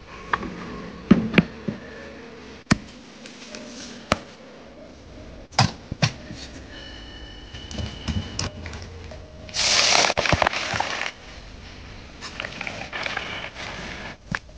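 Kitchen handling sounds: scattered sharp knocks and clatters of a plate being set into a bamboo steamer, and a loud hiss lasting about a second and a half about ten seconds in.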